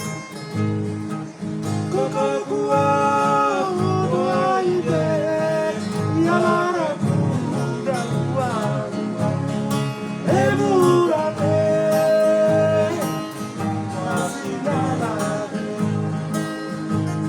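Papua New Guinea string band song: acoustic guitars strumming a steady rhythm, with singing carrying the melody from about two seconds in.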